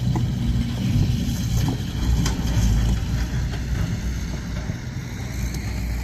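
An engine running steadily with a low hum, with a few light clicks over it.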